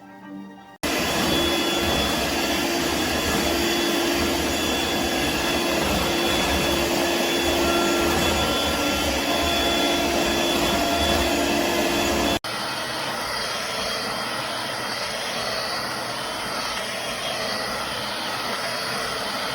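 Dirt Devil Vibe corded stick vacuum's motor running steadily with a whine on top. About twelve seconds in the sound cuts abruptly to a quieter, steady machine noise.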